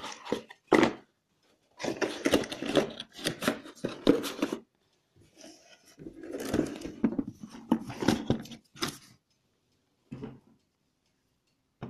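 Cardboard laptop box and its cardboard inner tray being handled: scraping, rubbing and knocking in several bursts with short pauses between.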